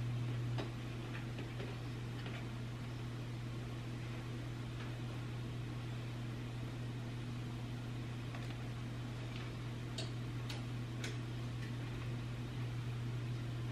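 Raw bagels being lowered by hand into a pot of hot water on an electric range: scattered light ticks and clicks over a steady low hum, with three sharper clicks about ten to eleven seconds in.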